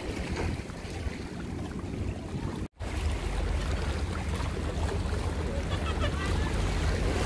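Wind rumbling on the microphone over open sea water lapping, with a brief total dropout about three seconds in.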